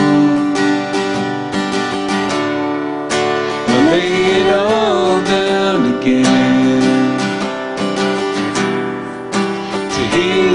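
Acoustic guitar strummed steadily under a slow worship song, with a man singing long held notes; one sung phrase comes about four seconds in and another near the end.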